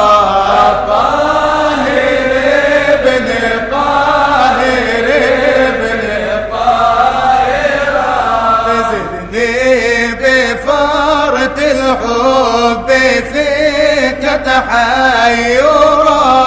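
Arabic devotional chanting (a nasheed of blessings on the Prophet Muhammad): the voice sings long, winding, melismatic lines without a break between refrain and verse.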